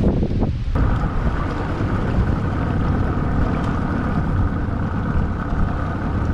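Bass boat's outboard motor running with the boat underway, a steady whine over a heavy rumble of wind buffeting the microphone; it cuts in abruptly about a second in.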